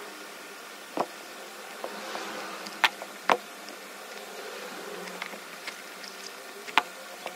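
A steady faint buzzing hum, broken by four short sharp clicks, the loudest about three seconds in and again near the end.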